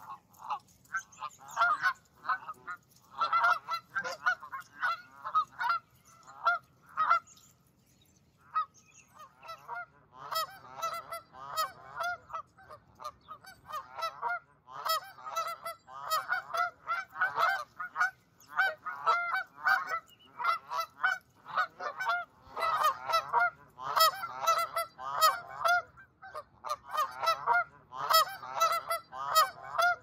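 A flock of Canada geese honking, many short honks overlapping in rapid bursts. The calling pauses briefly about eight seconds in, then picks up again and goes on almost without a break.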